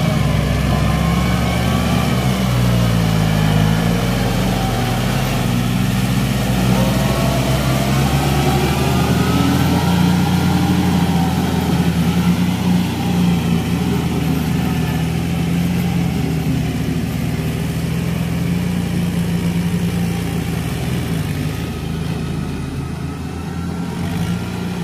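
Diesel engines of two farm tractors, a Kubota L4018 and an Iseki NT450, running steadily under load while working wet paddy mud. Their pitch drifts up and down as the load changes.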